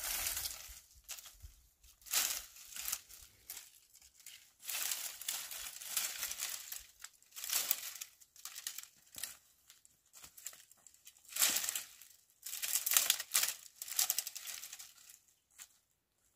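Dry branches and twigs rustling and crackling in irregular bursts as armfuls of brushwood are gathered, dragged and dropped onto a pile, with short pauses between handfuls.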